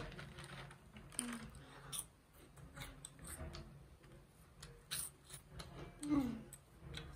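Close-miked crunching of crispy masala puffs: a scatter of sharp crackles and clicks as they are bitten and chewed. A short falling hum comes about six seconds in.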